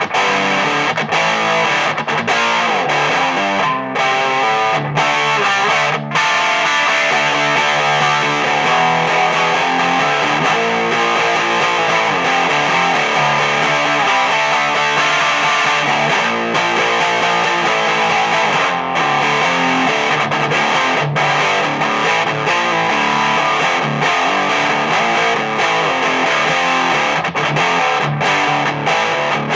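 Electric guitar played through a home-built Distortion+ style overdrive pedal (Vulcan Drive board with three germanium clipping diodes), a distorted tone with some treble rounded off by a 30 pF capacitor. The guitar plays continuous riffs and chords, with a few short stops between phrases.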